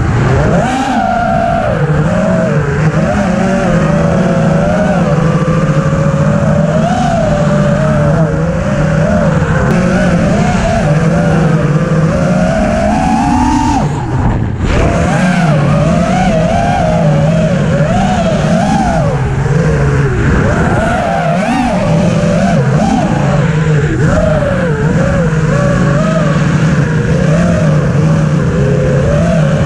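EMAX Hawk 5 five-inch FPV quadcopter's brushless motors whining, the pitch rising and falling constantly with the throttle. About fourteen seconds in, the whine climbs, then cuts out briefly before picking up again.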